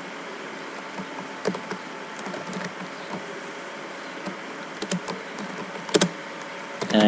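Computer keyboard keystrokes: scattered short clicks, a few at a time with pauses between, over a steady background hiss and faint hum.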